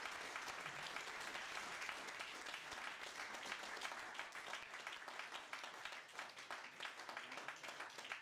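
Audience applauding, the clapping thinning out toward the end into scattered separate claps.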